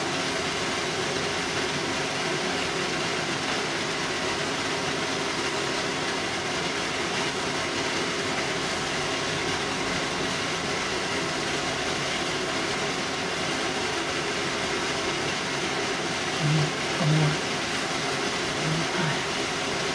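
Steady, even rushing noise of a kitchen appliance running, with a faint hum, and a few short low sounds near the end.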